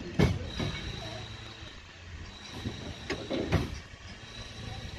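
Train running slowly along the track: a low steady rumble with two pairs of sharp knocks, the first near the start and the second about three seconds in.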